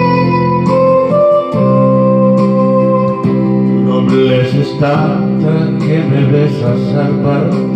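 Electronic keyboard playing the instrumental introduction of a slow romantic ballad: held chords with a melody line over them, the melody wavering from about four seconds in.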